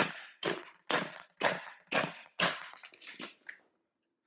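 A claw hammer smashing hard clear-plastic clamshell packaging resting on a stone countertop: about eight blows, roughly two a second, the first the loudest, stopping near the end.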